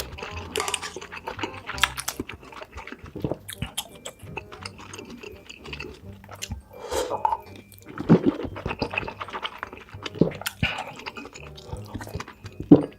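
Close-miked chewing and crunching of food, with many irregular sharp crunches and one louder bite near the end.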